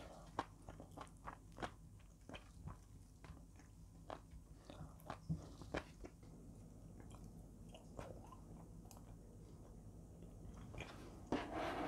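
Quiet chewing and mouth sounds of a person eating soft food, with many small clicks. About a second before the end comes a brief, louder rustling noise.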